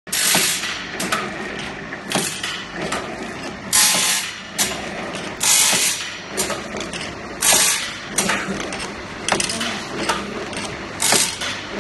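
Stellite band saw blade side-grinding machine running: its two facing grinding wheels grind the sides of the saw teeth, giving a harsh grinding burst about once a second over a steady machine noise, with sharp mechanical clicks in between.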